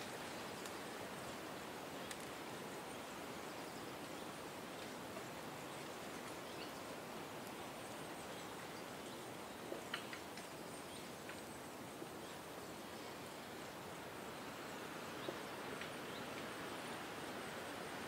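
Forest ambience: a steady hiss of wind through foliage, with faint high-pitched chirping and a few small sharp ticks, two of them close together about halfway through.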